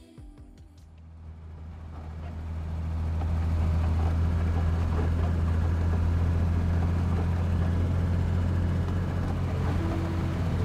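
Four-wheel-drive driving along beach sand, its engine and tyres giving a steady low drone that fades in over the first few seconds.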